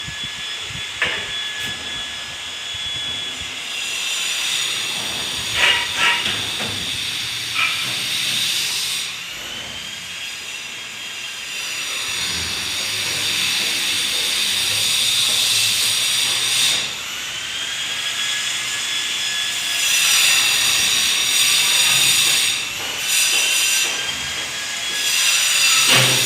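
Drywall screw gun whining at high speed in repeated runs, each spinning up and winding down, with a few sharp clicks between runs as screws are driven into gypsum board.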